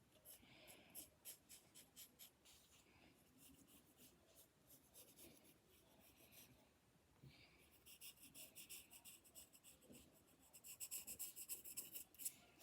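Drawing on paper by hand: short scratchy strokes that come in quick runs, growing faster and denser over the last few seconds as the drawing is filled in.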